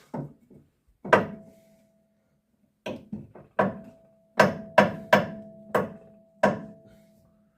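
Sharp metal knocks, about nine of them, irregular at first and then coming faster, each leaving a ringing tone behind it. The knocks come from work on a Land Rover 110's steering damper, as the new damper is forced into its mounting.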